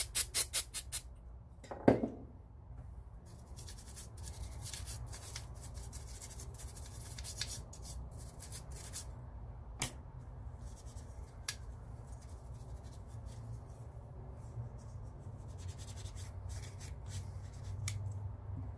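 Aerosol gun cleaner sprayed onto a rifle's trigger assembly: a quick run of short spurts, then a longer stretch of hissing spray. Small clicks and rubbing from handling the metal parts and a rag follow.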